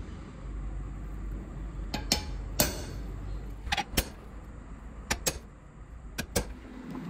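Sharp metal-on-metal clinks and taps, about ten of them, several in quick pairs, each ringing briefly, over a steady low hum.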